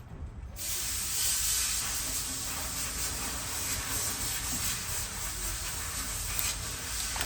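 A steady hiss starts abruptly about half a second in and keeps going, with a few faint clicks in it.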